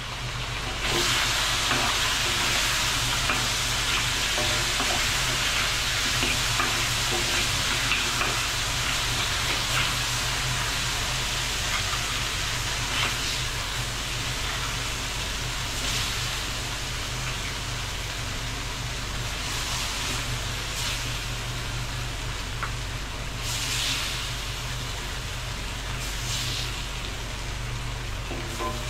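Ginger-and-scallion crab sizzling in a pan over high heat as its sauce boils down, with occasional scrapes and knocks of stirring. The sizzle gets louder about a second in.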